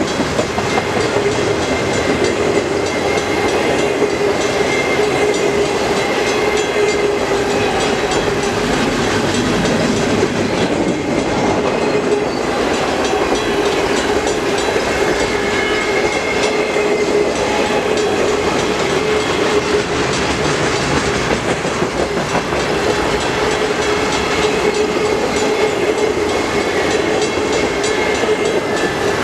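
Freight cars of an intermodal train rolling past: steady clatter of steel wheels on rail with clickety-clack over the joints, and a steady ringing tone from the wheels and rails.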